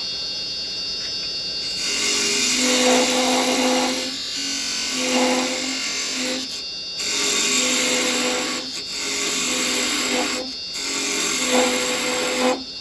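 Wood lathe running with a hum, then a parting tool cutting into the spinning wood in five passes of about two seconds each. Each pass is a scraping hiss with a steady low tone under it, broken off by short pauses between cuts.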